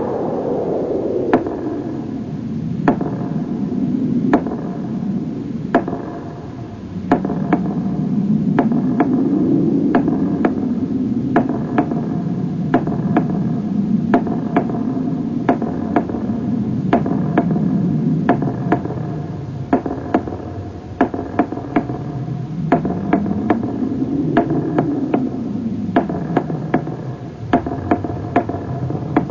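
Synthesizer soundtrack: a whooshing pad swells and fades every few seconds over faint held tones, with many sharp clicks scattered through it.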